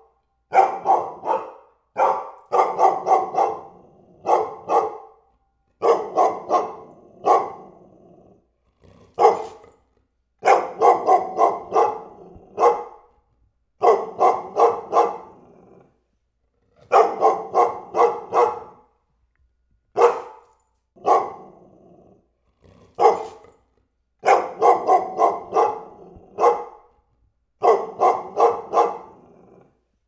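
German Shepherd barking in repeated volleys of several quick, deep barks, each volley about a second long, with short pauses between them.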